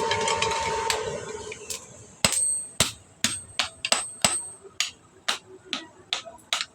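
Hand hammer striking hot iron on an anvil while forging a hoe: a run of about a dozen sharp, ringing blows, roughly two a second, starting about two seconds in. Before them, a steady tone fades out over the first second or so.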